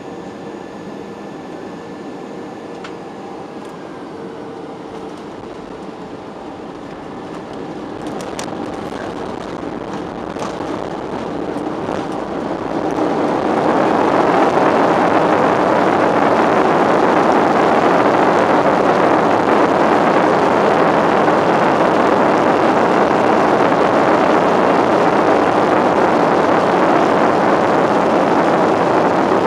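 A Boeing airliner's jet engines heard from inside the cabin during the landing roll: a steady rush with a faint whine, which swells about halfway through into a loud, even roar as the engines spool up for reverse thrust to slow the plane on the runway.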